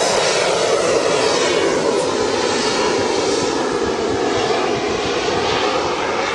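Radio-controlled SR-71 model jet's turbine engines running at speed as it flies past, a steady rushing jet roar.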